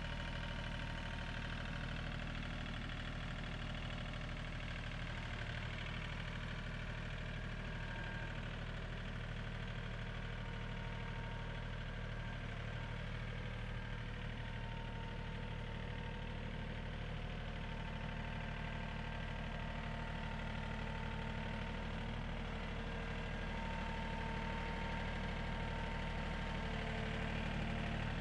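John Deere tractor engine idling steadily, getting a little louder near the end.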